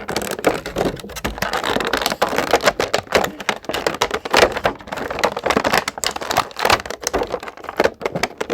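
Rapid, irregular clicking and crinkling of stiff plastic packaging being handled and pulled apart to free an action figure.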